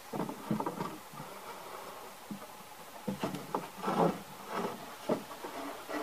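Plywood drawer dividers being set into a wooden drawer: a series of light wooden knocks and clatters, with a short stretch of wood sliding against wood about four seconds in as the pieces settle into place.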